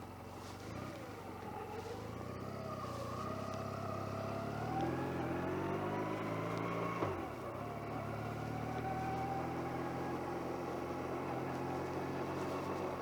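Motorcycle engine under way, picked up by a microphone inside the rider's jacket pocket. It accelerates with its pitch rising for several seconds, drops sharply at a gear change about seven seconds in, then runs steadily.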